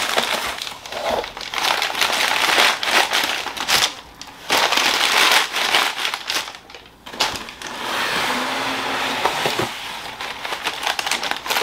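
Crumpled packing paper being pulled out of a cardboard shipping box, crinkling and rustling in irregular bursts with a couple of short pauses.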